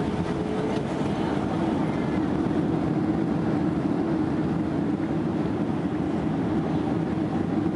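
Cabin noise of a Boeing 767-300 rolling out on the runway after touchdown, spoilers raised: a steady rush of engine and airflow noise with a low steady hum under it.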